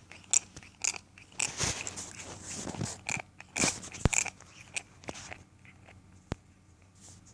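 A cat grinding its teeth: irregular crunching and clicking from its mouth, dense for about five seconds, then only a couple of sharp clicks. The cat had rotting teeth pulled a few months before, and this grinding comes on after it eats.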